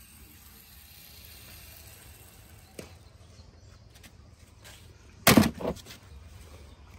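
Handling noise as toys are picked up and moved: a faint click about three seconds in, then one loud, short knock a little after five seconds, followed by a few light clicks.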